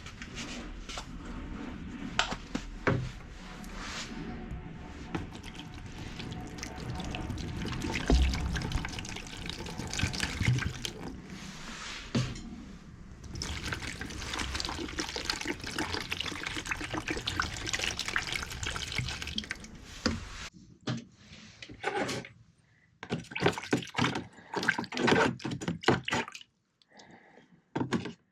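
Water running and splashing, with many small knocks, during work on a rusty axe head. In the last several seconds it gives way to a series of short, separate scraping strokes.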